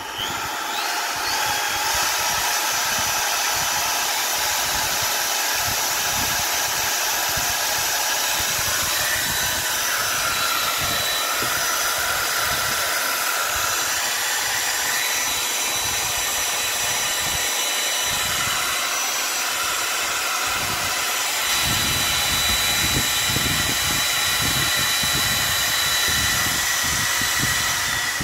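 Makita RT0700 trim router's brushed universal motor spinning up over the first couple of seconds, then running steadily at speed with a high whine. A deeper rumble joins in about three quarters of the way through.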